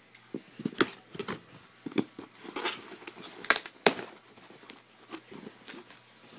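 A cardboard shipping box being forced open and its packing handled: irregular scrapes, crackles and taps of cardboard and paper, the loudest sharp strokes about three and a half and four seconds in.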